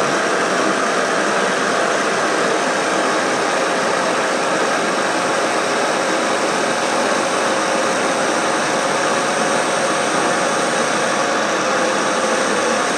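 Electric roof-lift motors of a pop-up truck camper running steadily as they raise the roof, a continuous mechanical hum and whine.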